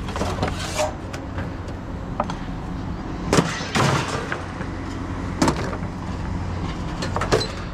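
Steady low engine hum, with three sharp knocks about three and a half, four and five and a half seconds in.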